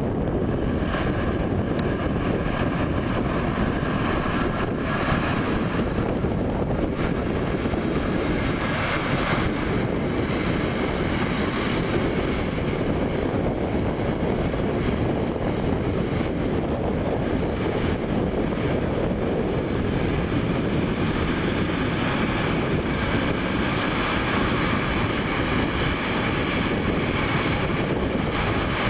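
A train passing by, its wheels on the rails and its drive making a steady, unbroken rolling noise.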